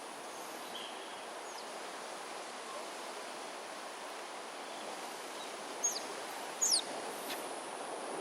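Steady outdoor wind-and-rustle noise with a faint high insect hum. About two-thirds of the way through come two short, high, falling whistled calls, less than a second apart.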